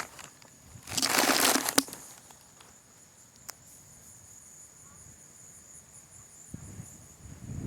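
A short crinkling rustle about a second in, lasting under a second, with a single click later, over a faint steady high-pitched whine.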